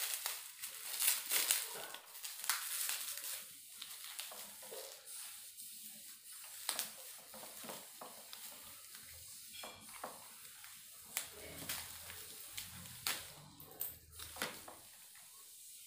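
Bubble wrap and plastic packing crinkling and crackling as they are pulled off a fishing rod. The crackles are dense in the first few seconds, then come in scattered bursts.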